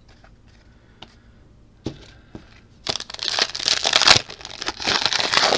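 A few light clicks of cards being handled. Then, about three seconds in, a trading-card pack wrapper crinkles and tears loudly, running on to the end.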